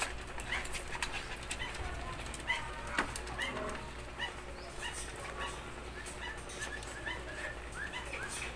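Small dog whimpering in a string of short, high-pitched whines, with scattered light clicks.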